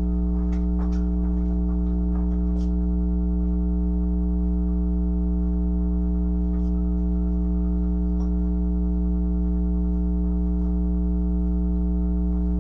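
Steady electrical hum, a low drone with a ladder of even overtones, under a few faint soft ticks and squelches of hands working a sticky cornstarch-and-detergent slime.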